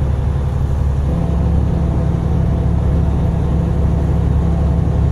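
Steady low drone of a vehicle's engine and road noise while driving, heard from inside the cab; the engine note firms up slightly about a second in.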